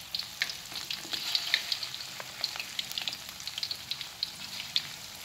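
Tofu, egg and sausage balls deep-frying in hot oil over medium heat: a steady sizzle full of quick sharp crackles and pops.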